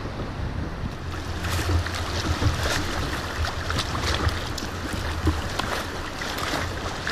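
Wind buffeting a bow-mounted camera microphone on a kayak, a steady low rumble, with choppy river water slapping and splashing irregularly against the hull.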